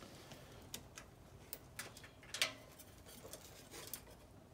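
Faint, irregular light clicks and taps of handling, the sharpest about two and a half seconds in.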